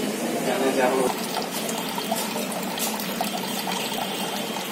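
Water bubbling in an aerated aquarium tank: a steady bubbling with small gurgles.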